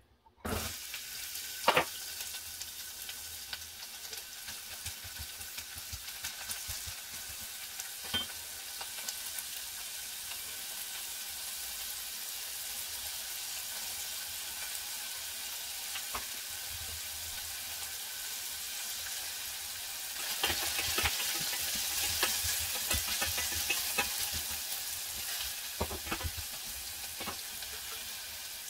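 Diced carrots hitting a hot stainless steel saucepan and frying with a steady sizzle, with one sharp knock just after they go in. A wooden spatula stirs the pan about two-thirds of the way through, and the sizzle grows louder for a few seconds with scraping clicks.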